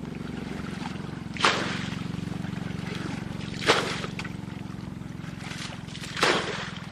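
A small engine runs steadily, and water splashes three times, each a short splash about two seconds apart.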